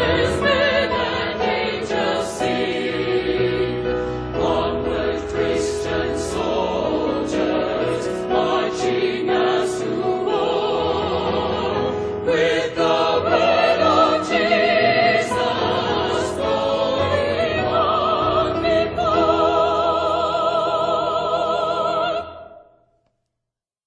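A choir singing a hymn with a strong vibrato over sustained accompaniment. The music cuts off near the end.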